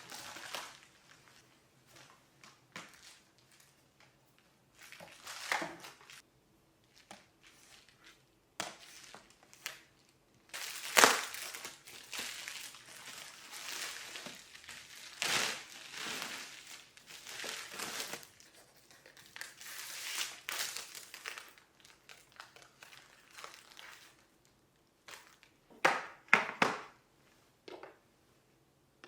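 Crinkly material being handled and crumpled in irregular bursts, busiest in the middle, with a sharp knock about eleven seconds in.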